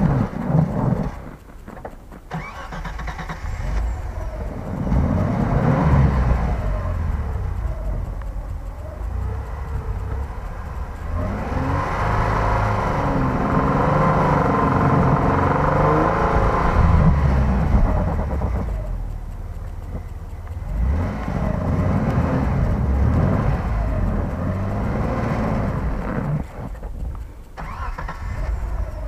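Short-wheelbase Mitsubishi Pajero 2 revving hard with its wheels spinning in deep snow, stuck and trying to dig itself free. The engine pitch rises and falls, and it eases off a few times between bursts of revs.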